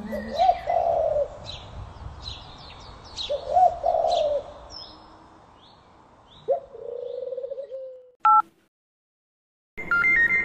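Spotted dove cooing, three phrases a few seconds apart, with small birds chirping over it. Near the end a short electronic beep, a brief silence, then a mobile phone's repeating ringing tone.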